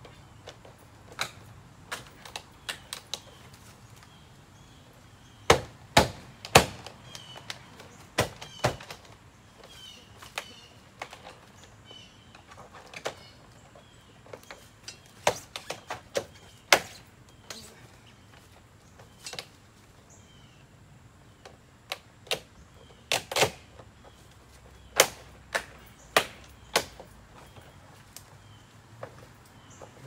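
Scattered sharp clicks and knocks at an uneven pace, the sound of hands working stiff panel pieces loose and back into place, with a few louder knocks in clusters.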